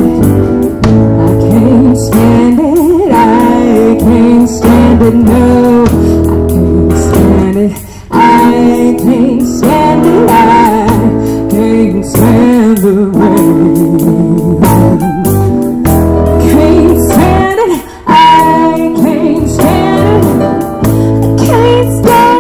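Live band playing a slow soul-blues song: a woman singing over strummed acoustic guitar, bass guitar, keyboard and a drum kit. The music drops back briefly twice, about a third of the way in and again near the end.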